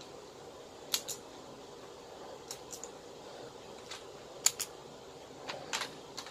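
Sharp plastic clicks, several in quick pairs, from a Gabu Revolver toy and its Judenchi battery being handled and loaded.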